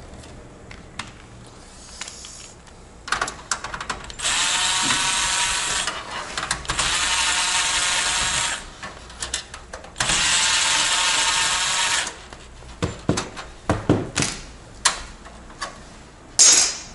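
Electric screwdriver spinning in three runs of about two seconds each, the first rising in pitch as it starts, backing out the screws that hold a graphics card's bracket in a PC case. Scattered clicks and knocks of metal parts follow near the end.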